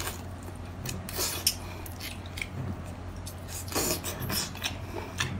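Eating a whole boiled baby octopus: scattered wet mouth clicks and smacks as the flesh is bitten and sucked, with one louder wet burst near four seconds in.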